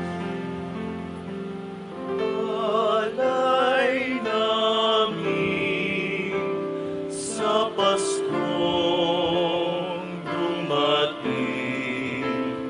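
Male choir singing a Tagalog Christmas offertory hymn over a sustained accompaniment. The first two seconds hold steady chords, then the voices enter with vibrato.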